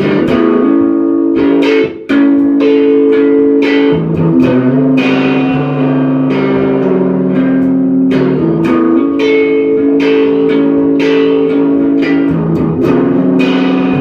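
Instrumental break in a song, with no vocals: guitar playing held chords that change every second or two over a bass line, with a brief drop-out about two seconds in.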